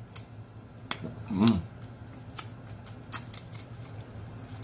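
Eating sounds: a fork clicking on a plate and mouth clicks from chewing, scattered at uneven intervals over a low steady hum, with one short voiced hum about a second and a half in.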